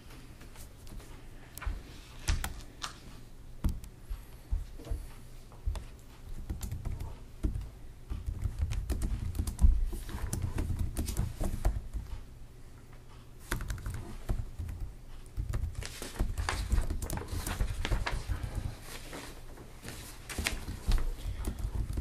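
Irregular clicks, taps and light knocks on a meeting table, like typing and papers being handled, over a steady low hum. The tapping grows busier about a third of the way in and again in the second half.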